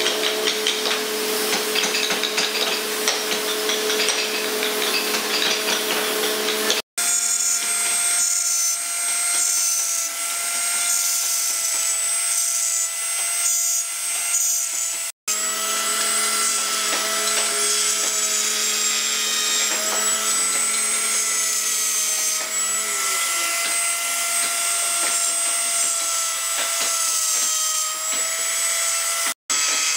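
Handheld electric die grinder with a small carving burr running at a steady whine and cutting grooves into wood, the pitch wavering slightly as the bit bites, over a gritty grinding hiss. The sound drops out for an instant three times.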